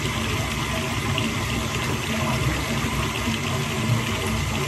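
Shower water running steadily into a bathtub, an even rushing hiss.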